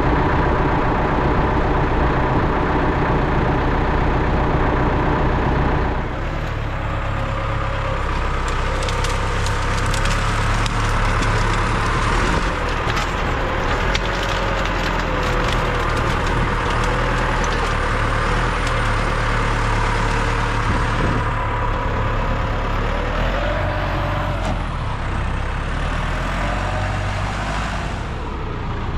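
A heavy engine runs steadily throughout. About six seconds in the sound changes, and wood cracks and splinters in a series of sharp snaps over the engine.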